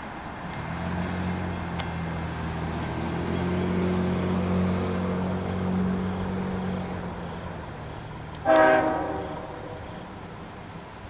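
Long Island Rail Road diesel locomotive engine running with a steady low hum that fades after about seven seconds, then one short, loud horn blast about eight and a half seconds in.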